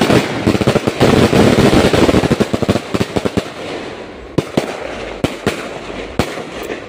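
Firecrackers going off in a rapid, dense crackle of many small bangs for the first three seconds, then thinning to scattered single bangs.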